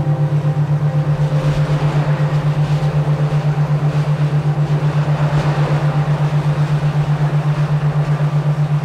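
A low synthesized beat tone hums steadily, pulsing evenly about six times a second, as in a binaural-beat relaxation track. A soft rushing noise swells in over the first couple of seconds and fades out again after about six seconds.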